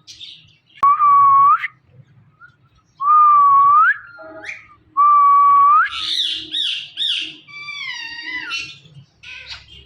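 Indian ringneck parrot whistling: three long, loud whistles, each held level and then sweeping up at the end, followed by a quick run of short, higher chirps and a falling call.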